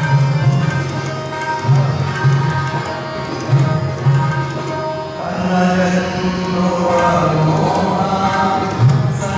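Tabla accompaniment in a Hindustani-style devotional song: deep, resonant bayan (bass drum) strokes, a few of them gliding in pitch, played over a steady tanpura drone. About five seconds in, a fuller melodic line joins.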